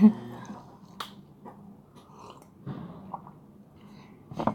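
A woman eating rice and chicken skin: quiet chewing and mouth sounds, with a sharp click about a second in and another near the end.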